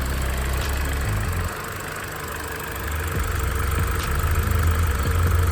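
Car engine idling with the air conditioning switched on; the low engine note drops about a second and a half in, then builds back up over the next few seconds.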